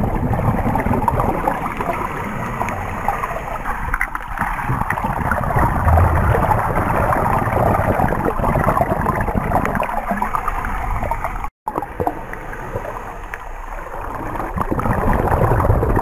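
Muffled, steady rush and gurgle of water heard through an action camera's underwater housing, with one brief dropout about two-thirds of the way through.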